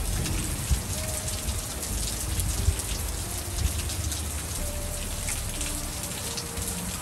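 Steady rain mixed with small hail, a dense patter of tiny ticks as drops and hailstones strike the ground and nearby surfaces, with a few louder taps.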